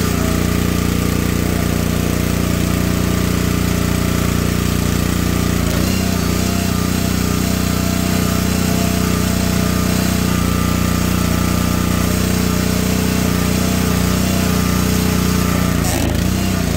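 Small gasoline engine of a Gravely 22-ton log splitter running at a steady speed, with a brief dip in its sound near the end.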